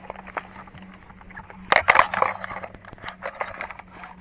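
A metal tape measure being handled and pulled out, a run of sharp clicks and rattles with a loud cluster about two seconds in; the tape is a bit rusty. A faint low steady hum lies underneath.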